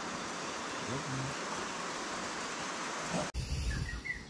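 Steady hiss of rain falling, which cuts off abruptly about three seconds in. After the cut come a low rumble and a few faint high chirps.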